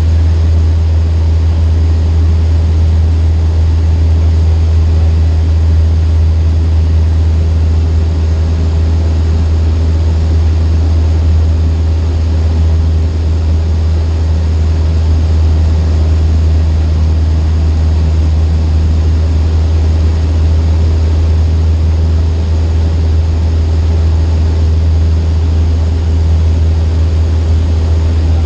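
Cessna 152's four-cylinder Lycoming O-235 engine and propeller droning steadily, heard from inside the cabin, with a strong low hum and no change in power.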